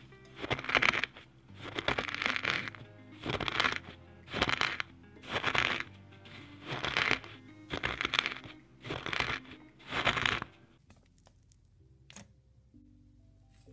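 Pestle crunching and grinding coarse crystals in a wooden mortar, one gritty stroke about every second, stopping about ten seconds in, over soft background music.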